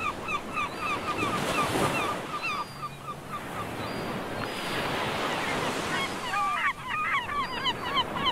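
Gulls calling in quick series of short yelping notes over the steady wash of surf. The calls drop out for a few seconds in the middle, leaving only the waves, and return near the end.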